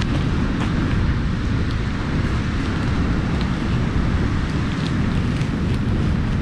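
Steady low rumble of moving air buffeting the microphone, with a few faint light clicks through it.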